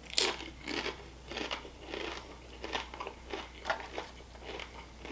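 Close-up chewing of crunchy tortilla chips from pulled-pork nachos: a run of irregular crisp crunches, about two or three a second.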